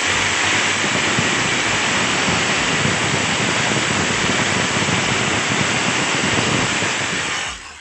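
A 5 kg 0810-type electric demolition breaker running, a loud, steady, rushing noise that cuts off abruptly near the end as it is switched off.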